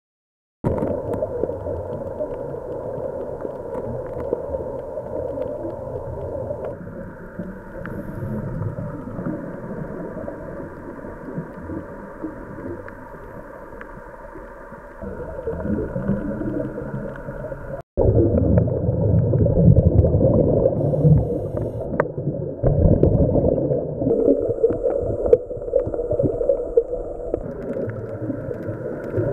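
Muffled underwater sound picked up through a dive camera's housing: an uneven low rumble and gurgling over a steady hum. It cuts out for a moment about 18 seconds in and is louder after.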